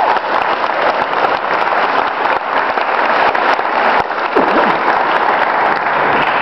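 Audience applauding steadily, the clapping echoing in a cathedral.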